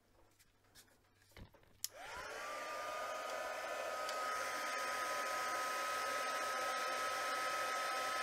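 A few faint handling taps, then an embossing heat gun switches on with a click about two seconds in; its fan motor spins up in a quickly rising whine that settles to one steady high tone over a steady rush of blowing air. It is heating clear embossing powder to melt it.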